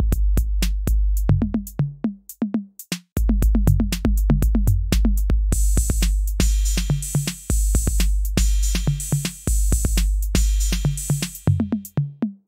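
Electronic background music: a drum-machine beat over a deep bass. The bass drops out for about a second around two seconds in and again near the end. A bright, hissy cymbal wash plays through the middle stretch.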